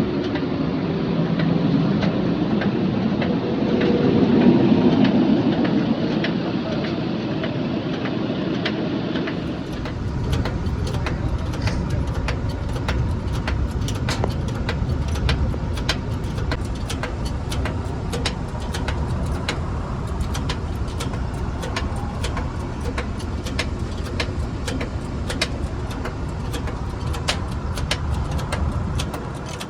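Motor vehicle running close by, swelling to a peak about four seconds in. From about ten seconds in it turns into a steady low engine sound with many sharp clicks over it.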